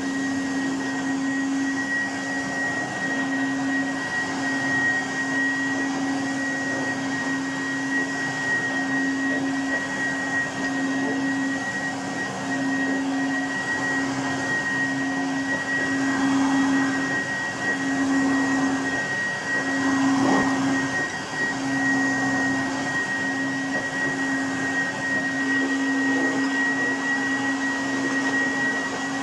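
Goblin Laser 2200X upright vacuum cleaner running steadily, a constant motor hum under a high steady whine. About twenty seconds in the sound briefly swells and changes.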